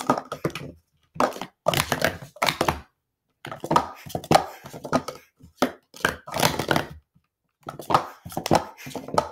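Plastic Speed Stacks sport-stacking cups clacking rapidly against each other and the table as they are stacked up and down at speed. There are four quick runs of dense clicks, broken by short pauses about a second, three seconds and seven seconds in.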